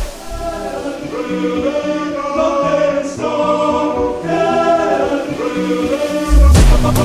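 Background music: a quieter sung or choir-like passage of held, stepping notes without drums, with the heavy electronic beat coming back in near the end.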